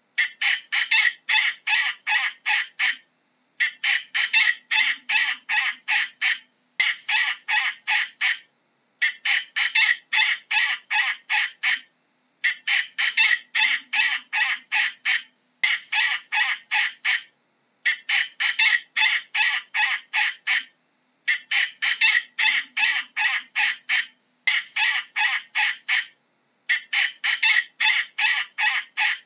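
Falcon calling in rapid runs of short, sharp notes, about four a second. The calls come in bouts of two to three seconds with brief pauses between, repeating over and over.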